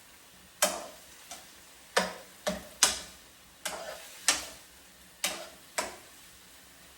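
Spatula strokes against a frying pan as cauliflower and pork are stir-fried: about nine sharp scrapes and knocks at an uneven pace, each fading quickly.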